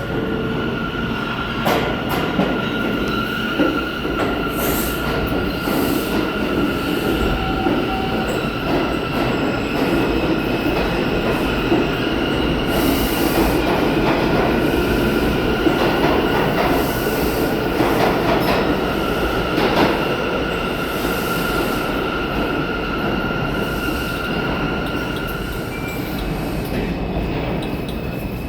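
New York City subway train running between stations, heard from aboard: a steady rumble of wheels on rail with a long, high steady squeal over it that stops shortly before the end.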